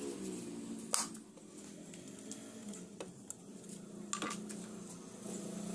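A few sharp clicks and knocks as the stripped metal housing of an old electric hand planer is handled and cleaned with a brush, the loudest about a second in and others near three and four seconds.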